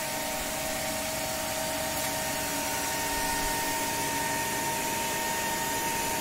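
Cooling fans of several cryptocurrency mining computers, graphics card and CPU cooler fans running steadily while mining: an even rush of air with a few steady whining tones.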